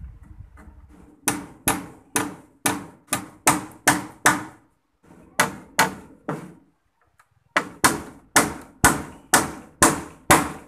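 Claw hammer striking the wooden roof framing in quick, regular blows, about two to three a second, in three runs with short pauses between.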